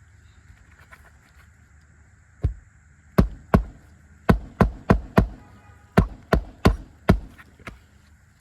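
Hammer driving roofing nails through an asphalt shingle into the roof deck: about a dozen sharp strikes in quick groups, starting a couple of seconds in.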